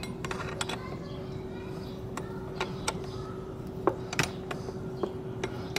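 Scattered sharp metal clicks and taps of an offset ring wrench working a stiff nut on a starter motor's solenoid terminal stud, which is rusty. A steady faint hum runs underneath.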